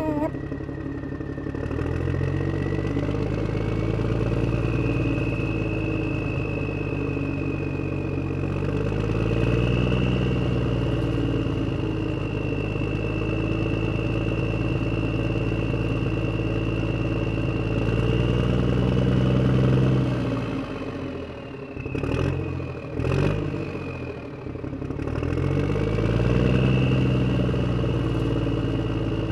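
Tractor engine revving up and easing off in long swells over a steady high whine. The engine sound drops away briefly with a few clicks a little over two-thirds of the way through, then rises again.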